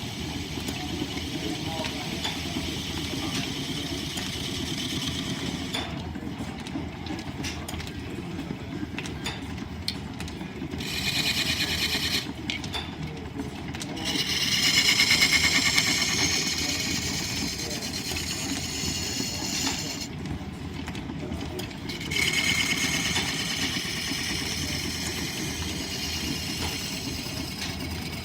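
Line-shaft-driven wood lathe running with a steady rumble of shafting and belts, while a turning tool cuts the spinning wood: a higher scraping sound that comes in three spells, the middle one, about halfway through, the loudest.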